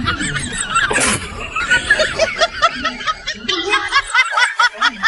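Person laughing in quick repeated snickering ha-ha-ha pulses, cut off suddenly at the end.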